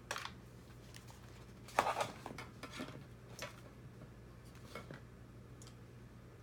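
Small hard parts of a robot kit clicking and clattering as they are handled, with a loud cluster of knocks about two seconds in and a few single clicks after, over a low steady hum.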